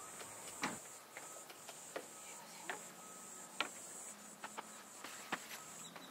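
Footsteps on wooden decking: sharp, irregular knocks about once a second. A steady high-pitched buzz runs underneath.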